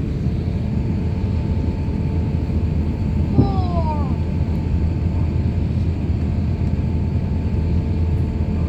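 Steady cabin rumble of an Airbus A350 jet airliner, its engines running with a faint steady whine on top. About three and a half seconds in, a short falling cry is heard.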